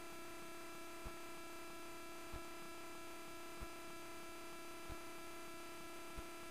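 Faint, steady electrical hum with several fixed high tones, picked up in the recording. A soft low tick repeats about every 1.3 seconds.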